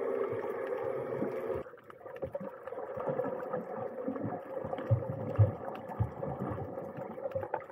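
A boat engine's steady drone heard underwater, which cuts off about a second and a half in. After it come quieter gurgling water noise and irregular low thumps around the submerged camera.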